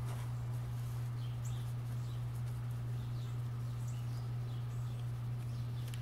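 A steady low hum runs throughout, with faint short high bird chirps scattered over it.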